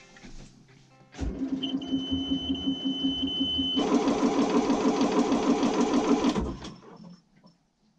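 Westerbeke 40 marine diesel being cranked for a cold start, a rhythmic churning with a high steady tone over the first couple of seconds. About 4 s in it grows louder, then it stops after about 6.5 s.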